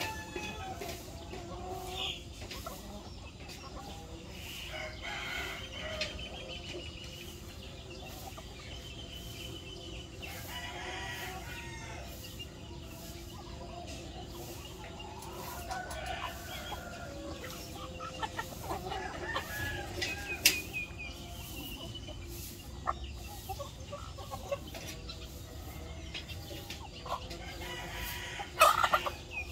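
A flock of chickens clucking and calling as they feed, with roosters crowing now and then and a louder burst of calls near the end.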